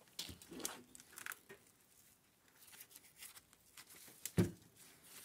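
Handling noise from an opened refrigerator compressor and its parts: scattered light clicks and rustles, with one sharper knock about four seconds in.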